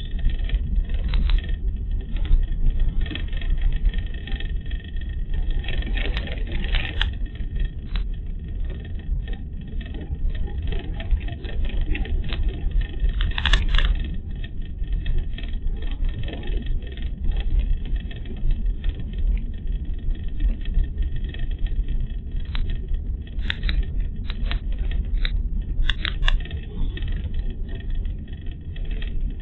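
Car driving, heard from inside the cabin: a steady low rumble of road and engine, broken by short rattling clicks, a cluster of them a little after six seconds in, another about halfway through, and several more near the end.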